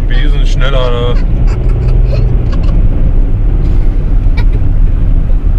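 Road and engine noise inside a moving car's cabin: a steady low rumble. A high voice sounds briefly in the first second.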